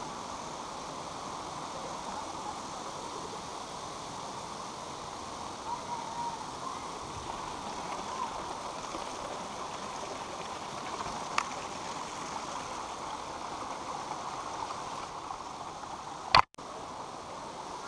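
Steady rushing of a stream's flowing water, with a faint click partway through and a loud, sharp click near the end.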